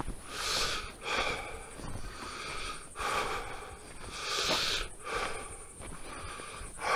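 A man breathing heavily, a noisy breath in or out about every second, from the exertion of hiking.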